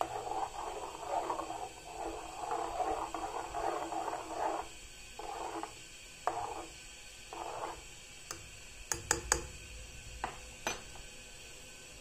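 A metal spoon stirring curdled milk in an aluminium pan, scraping and swishing against the pan, first continuously and then in three shorter strokes. It ends with a handful of sharp clicks, most of them close together about nine seconds in, as the spoon taps the pan.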